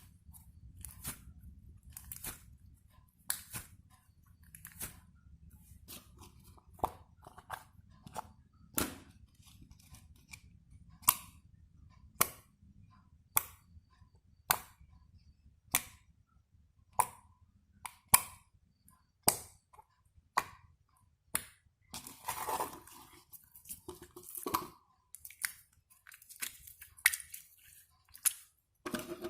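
Slime being squeezed and pressed by hand, giving sharp air-pocket pops about once a second. A few longer squishing sounds come about three-quarters of the way through.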